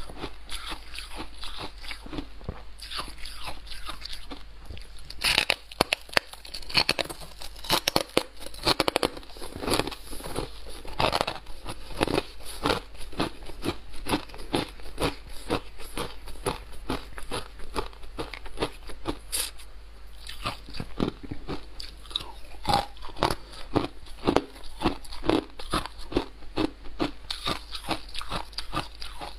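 Close-miked crunching of someone biting and chewing soft white frosty ice, a rapid run of crisp crackles that grows louder about five seconds in.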